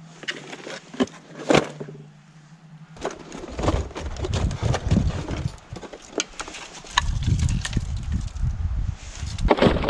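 Wood being handled while a campfire is laid: a few sharp knocks in the first two seconds, then from about three and a half seconds a dense run of clattering and rustling with a low rumble.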